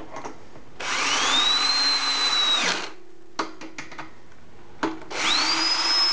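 Porter-Cable cordless drill driving long bolts through a wooden futon arm into a metal stretcher rail: the motor whines up in pitch, runs for about two seconds and stops. After a few light clicks it runs up again near the end, settling at a higher pitch.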